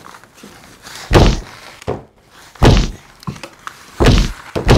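A fist punching a glass bowl of oobleck, about four dull, heavy thuds a second or so apart. The cornstarch-and-water mix stiffens under each blow, so the punches thud instead of splashing.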